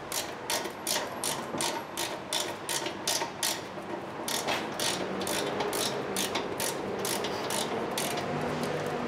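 Ratchet wrench clicking as it tightens the upper 17 mm caliper mounting bracket bolt, about four clicks a second with a short pause about four seconds in.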